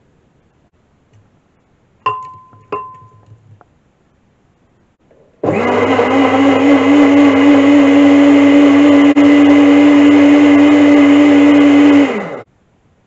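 Two sharp knocks with a short ring about two seconds in. Then an Aigostar jug blender switches on and runs steadily for about seven seconds, puréeing blackberries with oil and vinegar into a vinaigrette, and winds down as it is switched off near the end.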